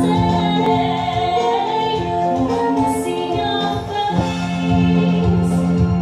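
Background music: a song with a female vocal over held, sustained notes.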